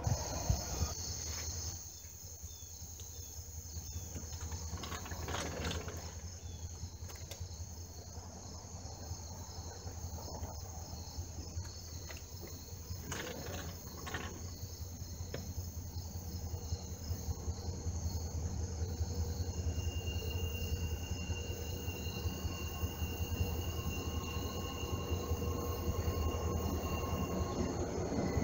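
Crickets and other insects chirring steadily over a low, steady rumble. A louder rumble cuts off about two seconds in, and the background grows slowly louder toward the end.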